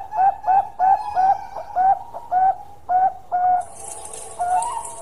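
Bangkok-type zebra dove (perkutut) cooing its long song: a run of about ten short, clipped notes, roughly three a second, spacing out and stopping a little over halfway through. A brief hiss follows near the end.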